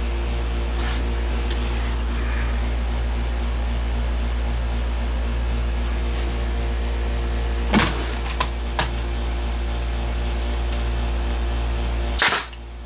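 Pneumatic nail gun firing a nail into wood about eight seconds in, followed by a couple of light knocks, then firing again near the end, over a steady machine hum that drops away after the second shot.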